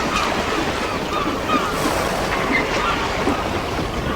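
Steady sea surf washing, with many short, curling bird calls over it.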